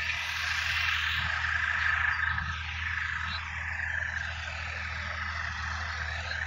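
A dense, steady chorus of calling frogs, over a low steady hum.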